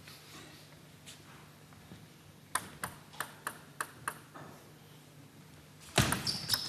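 Table tennis ball: a quick run of about seven light clicks, a few a second. Near the end comes a louder knock, then further clicks and a short high squeak.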